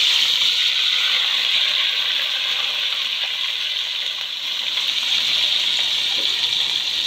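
Chopped onion and ginger-garlic paste frying in hot oil in a karahi: a loud, steady sizzle that eases slightly over the first few seconds after they go in.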